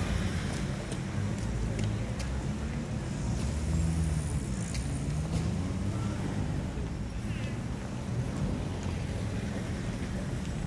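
Steady low rumble of street traffic, with scattered faint clicks and a brief faint chirp.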